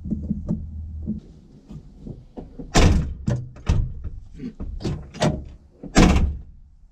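A series of knocks and clunks in a 1973 Chevy C30 pickup cab while a blown fuse under the dash is changed. The two heaviest thunks come about three seconds in and again near the end.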